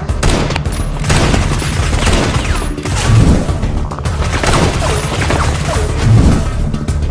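Action background music with gunfire and explosion sound effects laid over it, including two heavier booms about three seconds in and again about six seconds in.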